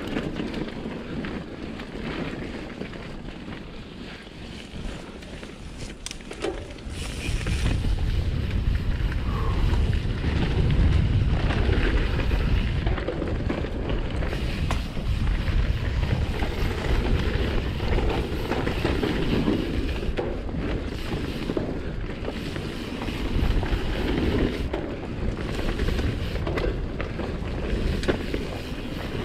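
Wind buffeting a GoPro Hero 7's microphone on a fast mountain-bike descent, mixed with tyres rolling over a dirt singletrack and the bike rattling over bumps. The low wind rumble grows much louder about a quarter of the way in and stays heavy, with scattered knocks throughout.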